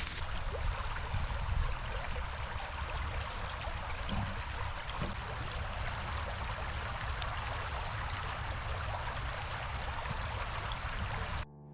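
Creek water flowing steadily in an even rush, cutting off suddenly near the end.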